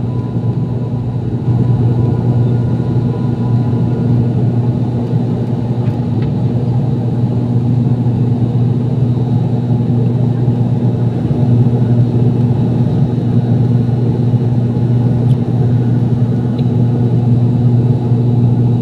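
Turboprop airliner's engine and propeller droning steadily, heard inside the cabin beside the wing: a loud low hum with a faint high whine over it. It gets a little louder about a second and a half in.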